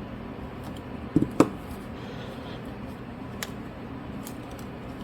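Small repair tools clicking and knocking against a phone during disassembly: a short knock and a sharp click about a second in, then a couple of faint ticks, over a low steady background hum.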